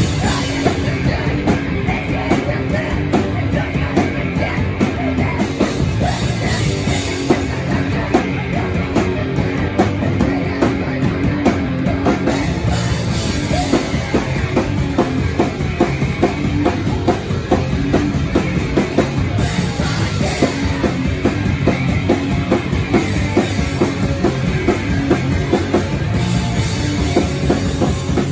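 Hardcore punk band playing live: loud electric guitars, drums and vocals through the PA, heard from inside the crowd.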